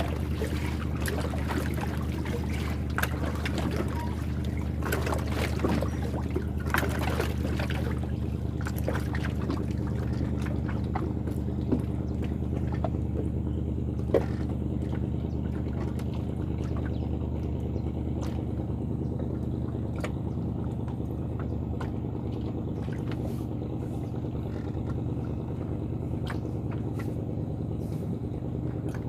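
An engine running steadily, with water trickling and scattered small clicks, mostly in the first half.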